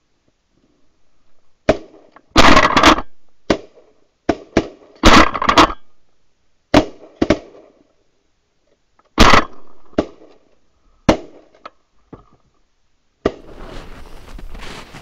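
A volley of shotgun blasts from several hunters firing at Canada geese flushing off the decoys: about a dozen loud shots over some ten seconds, a few of them overlapping. Near the end a steady rushing noise follows.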